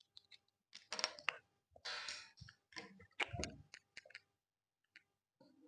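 Small parts of a snap-fit plastic and diecast model kit being handled and fitted together: a few short bursts of clicking and rustling, with scattered light ticks.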